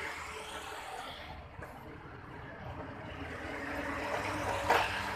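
Steady motor-vehicle rumble that swells toward the end, with one sharp click a little before the end.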